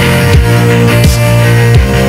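Background music with a deep sustained bass line and a heavy drum hit about every three quarters of a second.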